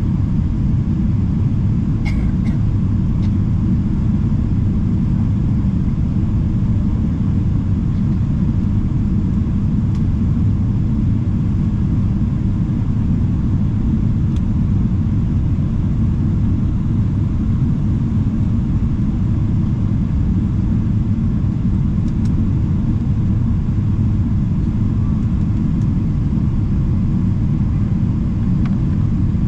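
Jet airliner cabin noise heard from a window seat: a steady low rumble of engines and airflow that does not change.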